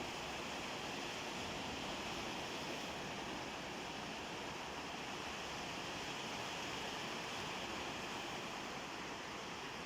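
Black Sea surf washing over a stony beach: a steady, even hiss of waves and water running among the stones.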